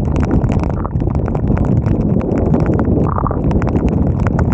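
Wind rushing and buffeting over a helmet-mounted 360 camera's microphone while cycling, with many dense, irregular sharp ticks on top. A brief higher tone sounds about three seconds in.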